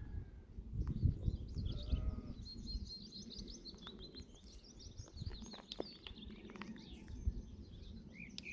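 Small birds chirping in quick runs, with a faint bleat about two seconds in, over a steady low rumbling noise on the microphone.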